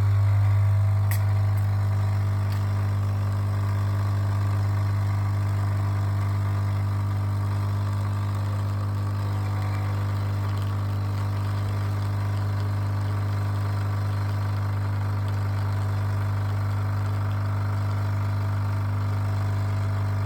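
Nescafé Dolce Gusto Piccolo capsule coffee machine's pump running with a loud, steady hum as it brews coffee into the cup.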